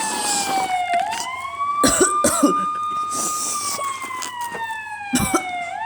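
Wailing siren. Its pitch rises quickly, then falls slowly over about five seconds and rises again near the end. Two short noisy bursts cut across it, about two seconds in and a little after five seconds.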